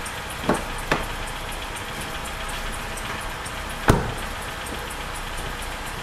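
Mercedes-Benz engine idling with a squeak from its rubber drive belt repeating several times a second: the belt has deteriorated. A car door clicks open early on and shuts with a thump about four seconds in.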